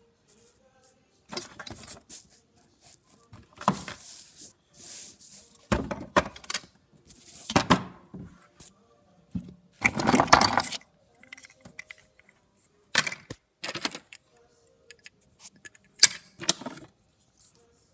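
Toy dolls and dollhouse pieces being handled and moved about: rustling and plastic clattering in irregular bursts, the longest about ten seconds in.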